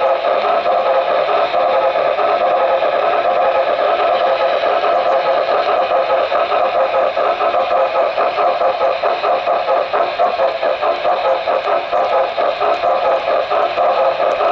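An HO scale model steam locomotive running along the track, its motor and gears making a steady whir with a fast rattle, heard right up close from the camera riding on the train.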